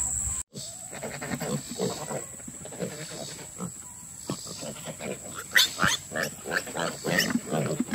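A sow and her piglets grunting and squealing in many short, overlapping calls as they eat apples, with a flurry of higher squeals a little past the middle.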